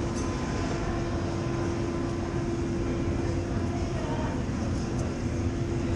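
A steady machine hum holding one constant tone, over a wash of background noise and faint, indistinct voices.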